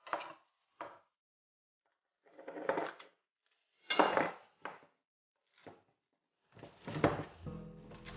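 Kitchenware being handled on a counter: several short clatters and knocks of pans, dishes and utensils, with silent gaps between them.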